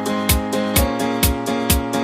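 Background music: an electronic dance track with a steady kick-drum beat about twice a second, high percussion ticks between the beats and sustained notes over it.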